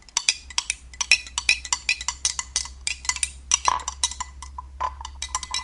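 A spoon stirring lime juice and honey in a glass, clinking against the glass several times a second.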